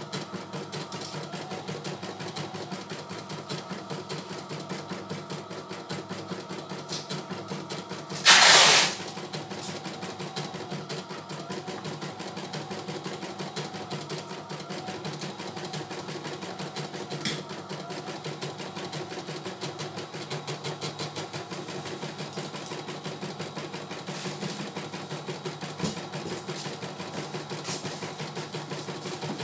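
CNY E900 computerized embroidery machine stitching a design, its needle running in a fast, even rhythm. About eight seconds in, a loud burst of noise lasting under a second is louder than the machine.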